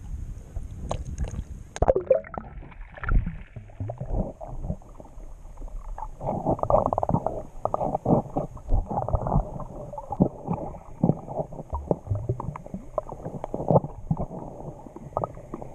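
Shallow seawater lapping at the surface, then about two seconds in the sound turns muffled as the camera goes underwater: gurgling, sloshing water with irregular knocks from the camera being handled.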